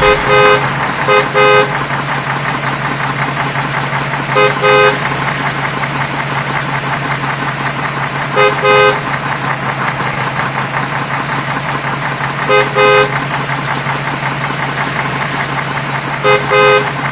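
Vehicle horn tooting in short paired beeps that recur about every four seconds, over a steady engine and road noise.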